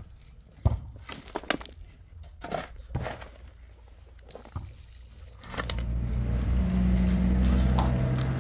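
A shovel scrapes and knocks as it digs into a pile of earth and stones and drops it into a wheelbarrow. About five and a half seconds in, a low engine hum from a vehicle swells up and becomes the loudest sound.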